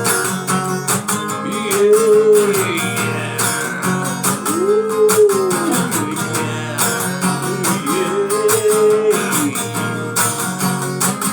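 Instrumental intro of a rock song: strummed guitar chords played fast, with a melody that rises and falls three times over them.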